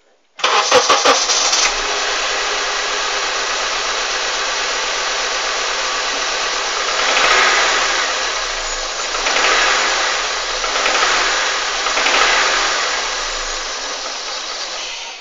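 Honda CR-V engine started with the fourth cylinder's ignition coil removed, catching about half a second in and then running, with three brief rises in revs before it cuts off near the end. The knock it is being checked for is still there with that cylinder dead, and to the owner's ear louder.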